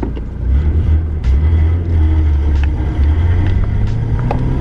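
Nissan Skyline R31's RB30 straight-six engine pulling while driving, a steady low drone that rises in pitch near the end as the car speeds up, with a few light knocks and rattles over it.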